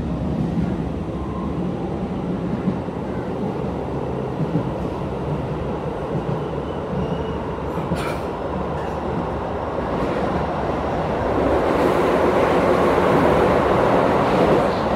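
Keisei 3000 series electric commuter train running, heard from inside the passenger car: a steady rumble of wheels on rail. A single sharp click comes about eight seconds in, and the running noise grows louder over the last few seconds.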